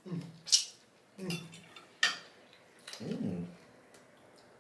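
Close-up mouth sounds of eating fish with the fingers: wet lip smacks and sucking, with three short hummed 'mm' sounds.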